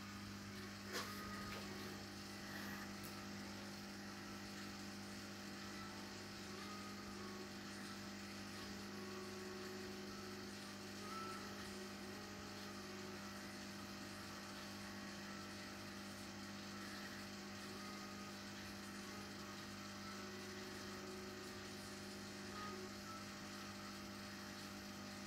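Steady low electrical mains hum, with a single faint click about a second in.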